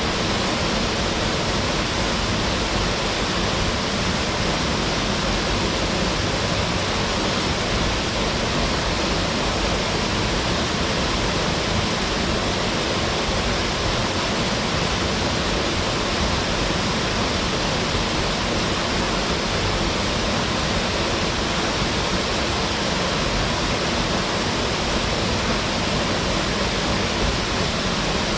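Waterfall pouring steadily into its plunge pool: a dense, even rush of falling water with no breaks or changes.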